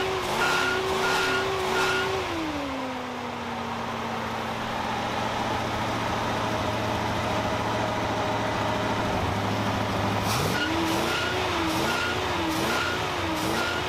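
1979 Ford one-ton truck's engine held at a fast idle from the carburetor with a rhythmic lope, falling to a lower steady idle about two seconds in and brought back up a little past ten seconds. Oil is being fed through the carburetor to free up the stuck piston rings.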